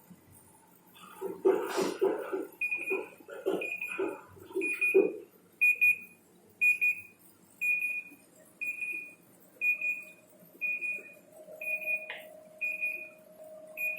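Automatic washing machine's alarm: a high electronic beep repeating about once a second, the usual signal that the cycle has finished. Irregular low knocks sound under the first few beeps, and a faint steady hum comes in about halfway through.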